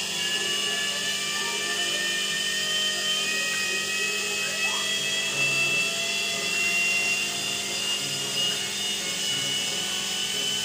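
Electrolux EWF984 front-load washing machine's brushed drive motor running, a steady whine with a low hum underneath and one tone creeping slowly upward in pitch.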